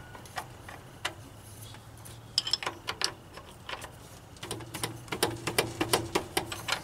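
Metal clicks and taps of a hand wrench working on the tensioner pulley bolt of a Chevy 4.3 V6. There are a few scattered clicks at first, then a quick run of clicks over the last two seconds or so.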